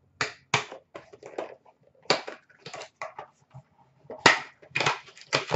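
Hands handling a plastic-cased trading card and cardboard card boxes and packaging: a run of short, irregular rustles, scrapes and taps, loudest about two seconds in and again toward the end.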